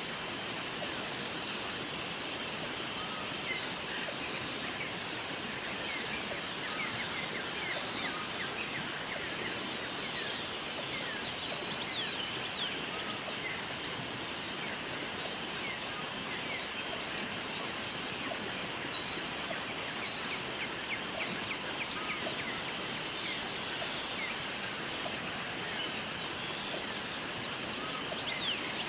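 Jungle waterfall ambience: steady rushing water, with many short bird chirps and a high buzz that switches on and off every couple of seconds.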